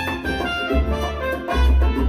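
Latin salsa-style music with brass and percussion over a deep bass line, played back through KEF LSX wireless speakers.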